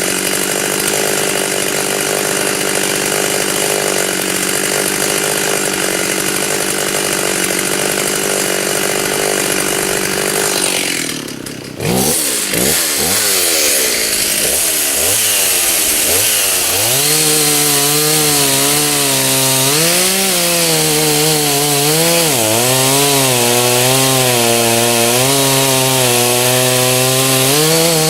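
Stihl two-stroke chainsaw running at high revs. About eleven seconds in it drops off briefly, then revs back up and runs on with its pitch wavering up and down as it works through oak wood.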